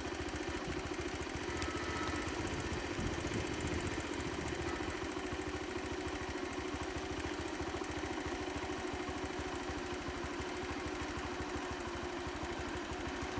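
A motor vehicle's engine idling steadily, with an even, rapid pulse.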